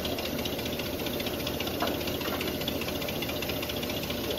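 An engine idling steadily in the background, with a fast, even pulse. A single short click about two seconds in.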